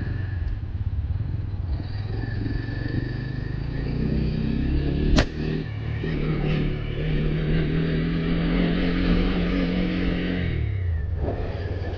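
Motorcycle engine running as it rides a dirt track, revving up about four seconds in and holding steady before easing off near the end. A single sharp knock is heard about five seconds in.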